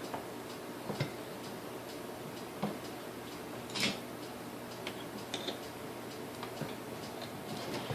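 Scattered light clicks and taps, spaced a second or more apart, with the loudest about four seconds in: metal parts of a Sunbeam Mixmaster Model 9 mixer being handled and worked loose during disassembly. A faint steady hum runs underneath.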